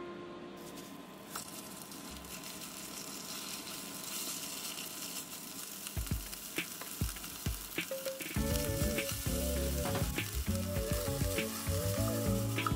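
Minced shrimp sizzling in hot oil in a small non-stick pot, starting about a second in, with chopsticks clicking against the pot as it is stirred. Background music comes in past the middle.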